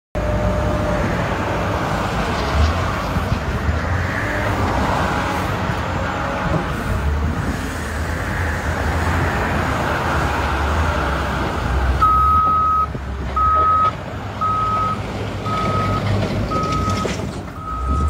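Caterpillar 950K wheel loader's diesel engine running as it moves. About two-thirds of the way through, its reverse alarm starts beeping: one long beep, then shorter beeps about once a second.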